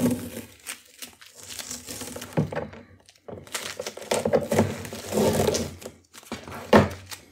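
Masking tape being peeled off the edges of watercolour paper, coming away in several pulls with short pauses between them.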